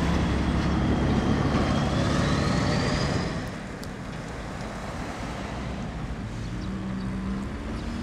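Street traffic: a motor vehicle's engine running close by, dropping away about three seconds in, then another engine rising in pitch near the end.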